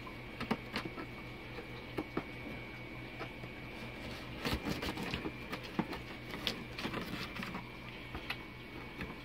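A knife slitting packing tape on a cardboard shipping box: irregular scrapes and clicks, busiest around the middle, over a faint steady hum.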